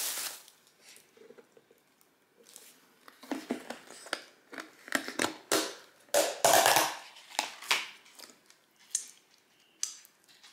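Thin plastic bag rustling and crinkling as a container is pulled out of it, then the plastic lid of a takeout container being pried off with a burst of crackles and snaps about six to seven seconds in, and a couple of single clicks near the end.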